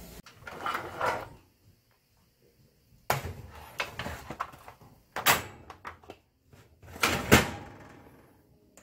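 Disposable aluminium foil roasting pan and metal oven rack being handled with oven mitts: several separate clunks and scraping rattles in bursts a second or two apart.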